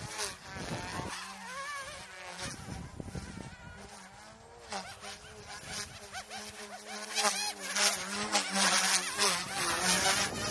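GOOSKY S2 micro RC helicopter in flight: a thin, insect-like buzzing whine from its electric rotors, wavering in pitch as the throttle changes during manoeuvres. It gets louder in the second half.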